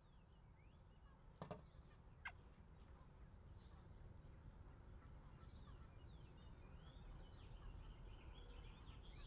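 Very faint outdoor background with distant birds chirping, more of them toward the end. A sharp click comes about a second and a half in, and a short call falling in pitch follows just after.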